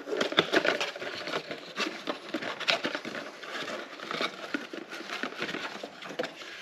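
Cardboard fuel-filter box being opened by hand: the flaps rustle and crinkle in a busy, irregular run of small scrapes and crackles as the new filter is worked out.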